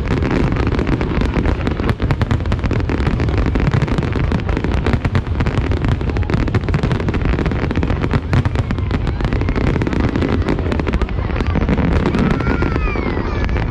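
A fireworks display set off close by: a dense, continuous barrage of rapid crackling bursts over a steady low rumble of booming shells.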